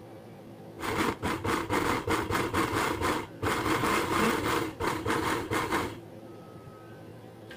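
Spice paste of chillies, shallots, garlic, ginger, turmeric and tomato being ground by hand with a mortar and pestle: a fast run of grinding strokes that starts about a second in, breaks off briefly partway, and stops about six seconds in.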